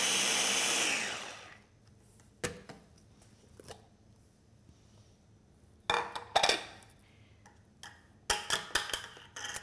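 Small press-top food chopper motor running at high speed on a strawberry yogurt mix, then cutting off about a second in and spinning down. Then come scattered plastic clicks and clatters as the motor head and lid come off the bowl, the loudest knock a little past halfway, and a run of spoon clinks in the bowl near the end.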